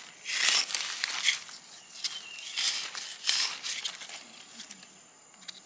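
Rustling and crunching of dry forest-floor litter while wild mushrooms are picked. It comes in several short bursts and grows quieter over the last couple of seconds.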